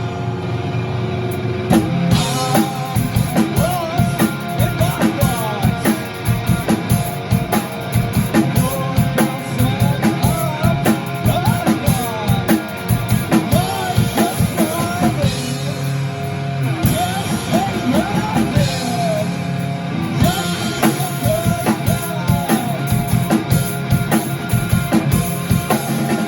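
A rock band playing a song: a drum kit keeping a steady beat under electric guitar, with a voice singing the melody.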